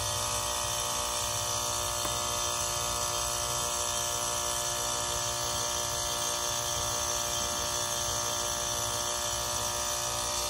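Rheem heat pump outdoor unit running steadily, its compressor humming and buzzing over a hiss. It stays in heating with no shift into defrost despite the forced defrost, which the technician thinks may mean a bad defrost board.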